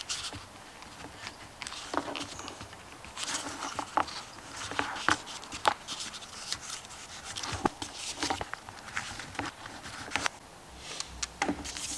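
Hands handling wires and heat-shrink tubing: scattered small clicks, ticks and rustles at irregular intervals.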